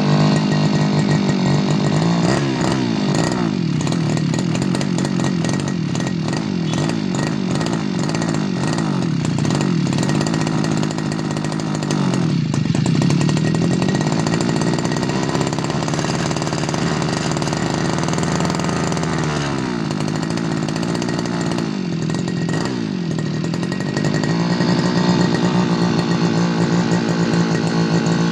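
Tanika 328 Turbo two-stroke brush cutter engine running at high revs, its note dipping and climbing back three times.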